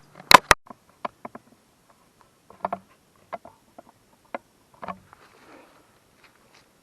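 Camera handling noise as it is put down: a quick cluster of sharp, loud clicks at the start, then scattered softer clicks and knocks at irregular intervals.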